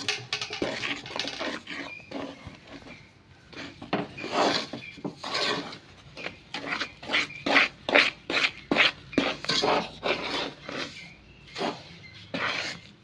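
A spoon stirring and scraping rice flour into a sticky jaggery-and-coconut mixture in a pan, in a run of quick repeated strokes, about two a second in the middle.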